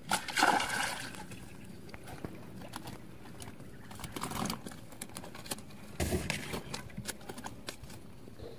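A small hooked fish splashing at the water's surface as it is pulled in, then flapping on the line after it is lifted out. There is a burst of splashing in the first second, then shorter bursts about four and six seconds in, with scattered light clicks.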